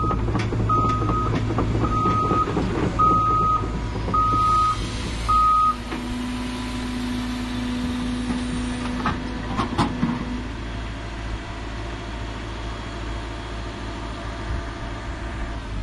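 Cat hydraulic excavator's diesel engine running, its travel alarm beeping six times, about once a second, then stopping. A steadier tone under load follows for about four seconds, with a few knocks near its end.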